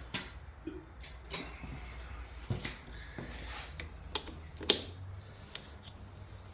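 Scattered light clicks and knocks of hands and tools working on a dirt bike with the engine off, about half a dozen, the sharpest a little under five seconds in, over a faint steady hum.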